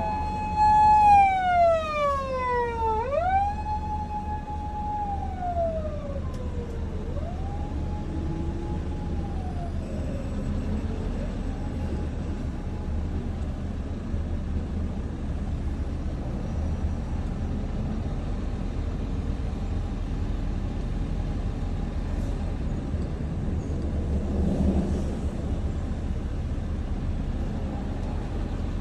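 Japanese police car siren wailing: each tone rises quickly, holds high, then slides slowly down, about three cycles in the first ten seconds before it fades away. A steady low rumble of road traffic goes on underneath and remains after the siren is gone.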